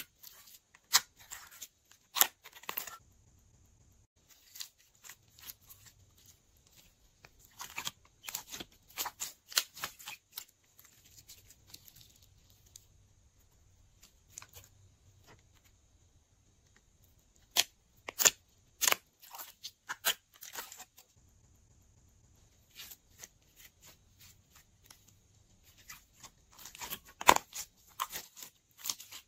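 Glossy slime being pulled, squeezed and folded by hand: sticky clicks and pops in irregular bursts, with short quiet pauses between handlings.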